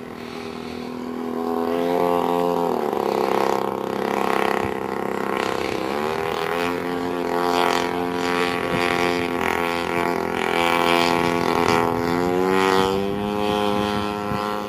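Gas engine of a 1/3-scale Aeronca Champ RC airplane running, its pitch going up and down several times: it rises about two seconds in, drops back, dips lower around six seconds and climbs again, then rises once more near the end.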